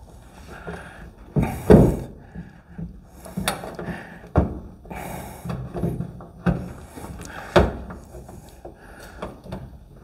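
Irregular knocks, clunks and scraping as a steel fender skirt is worked into place over the rear wheel opening of a 1950 Ford. The loudest knocks come about a second and a half in and again near eight seconds.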